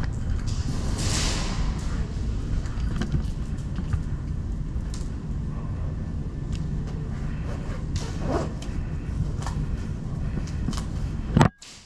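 Low rumble of movement and handling noise on a body-worn camera, with scattered faint clicks and knocks. The sound cuts out abruptly near the end.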